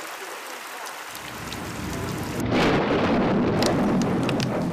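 Thunder rumbling over steady rain: the rumble builds about a second in and swells loudest just past the middle, then slowly fades, with scattered sharp raindrop ticks.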